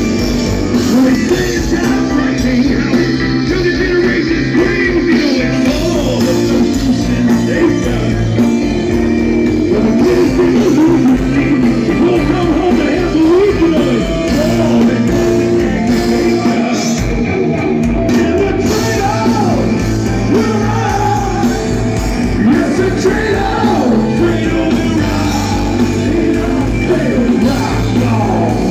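Progressive metal band playing live and loud, with electric guitar, drums and singing, heard from among the crowd.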